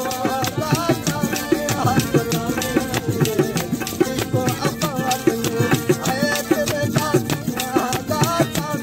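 Sindhi Sufi folk music: harmonium and a gourd-bodied one-string yaktaro, with a steady rattling, clicking percussion rhythm from handheld clappers and a singing voice.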